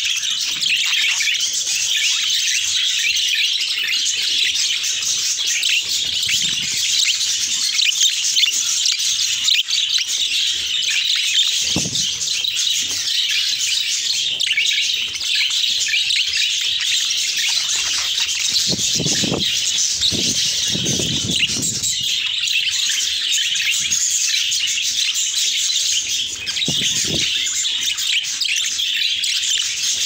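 A flock of budgerigars chattering and warbling in a continuous dense twitter of fast, high chirps.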